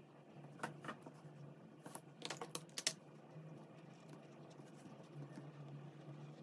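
Sharp plastic clicks and taps as pens are swapped on the desk: a pair about half a second in, then a quick cluster around two to three seconds in. After that come only faint light ticks of a pen on paper.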